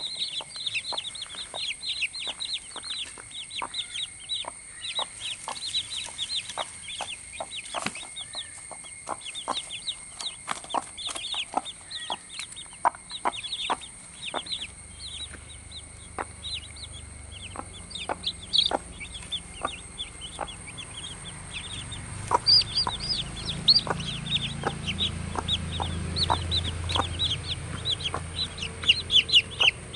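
Newly hatched chicks peeping in a rapid, continuous stream of high cheeps, with the broody mother hen's short, sharp clucks among them. A low rumble comes in about halfway through.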